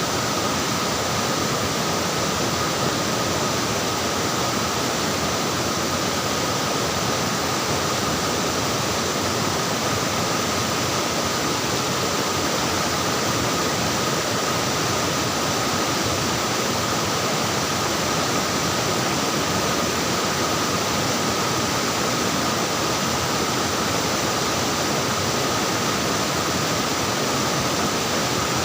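Flowing water splashing in a steady, unbroken rush, with a faint steady tone running through it.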